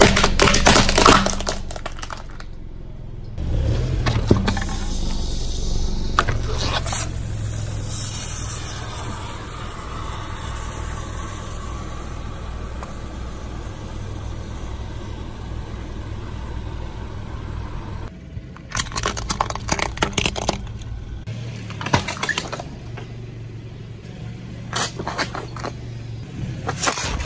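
A plastic toy airliner cracking and crunching under a car tyre in the first two seconds. Then a long steady hiss over a low car rumble as a crushed aerosol foam can empties, with one sharp crack. Near the end, a run of sharp crackles as plastic ketchup bottles are squashed.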